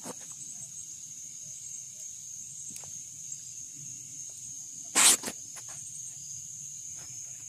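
Insects chirring in a steady high-pitched drone, with one sharp knock about five seconds in.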